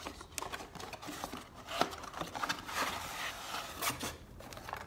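Cardboard packaging being opened: a flap pulled open, then an inner box sliding out of its cardboard sleeve. It makes irregular scraping, rubbing and clicking, with one sharper click about two seconds in.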